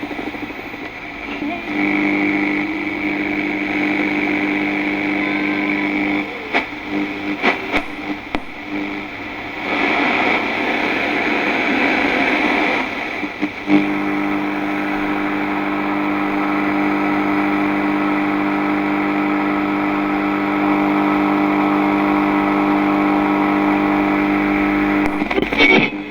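FM radio being tuned across the dial. A steady droning tone from a signal alternates with crackles and clicks as the dial moves, and a few seconds of hiss between stations come about ten seconds in. The tone holds from about a quarter of the way in to near the end, where more clicks come.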